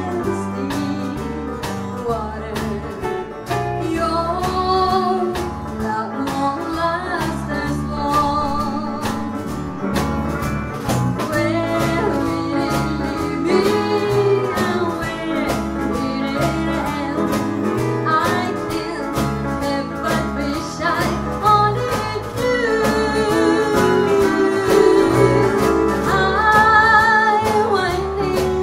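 Live country band playing a song at a steady beat: pedal steel guitar, acoustic and electric guitars, bass and drums, with gliding, wavering melody lines.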